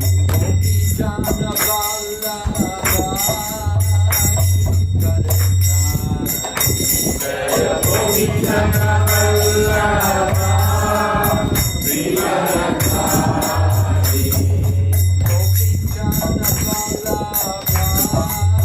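Devotional music: voices singing together over steadily jingling hand cymbals.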